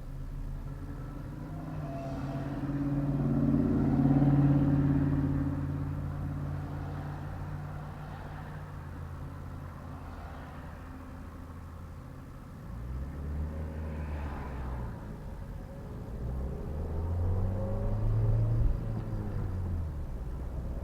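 Car driving along a road: engine and road noise, the engine pitch rising and falling a couple of times, loudest about four seconds in and again near the end.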